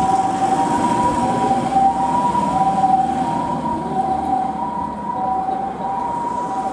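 Japanese ambulance's electronic two-tone "pee-po" siren, alternating steadily between a higher and a lower note about every two-thirds of a second, over vehicle engine and road noise. It grows a little fainter in the second half.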